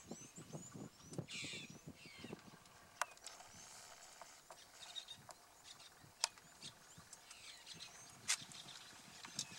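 Birds chirping and calling in dry bush, a quick run of chirps about a second in, with a few sharp clicks scattered through.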